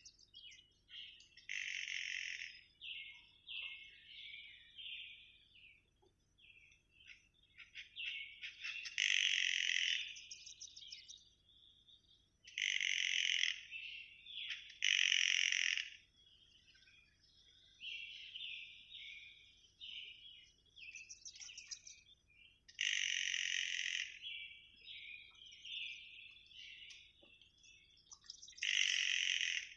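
Wild animal calls in a forest: loud bursts of chirping, each about a second long, come every few seconds, with softer, quicker chirps in between.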